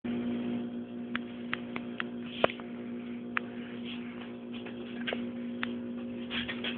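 A steady electrical hum with scattered light clicks and ticks.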